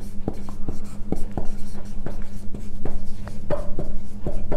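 Marker pen writing on a whiteboard: a quick, irregular run of short strokes and taps, about three or four a second, over a steady low hum.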